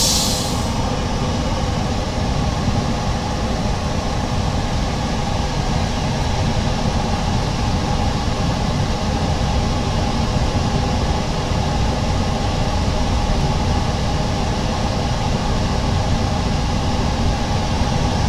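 Steady mechanical drone of workshop machinery: an even noise with several constant hum tones, unchanging throughout.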